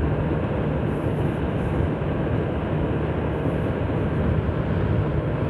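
Motor scooter running steadily at cruising speed, its engine hum under a constant rush of wind on the microphone.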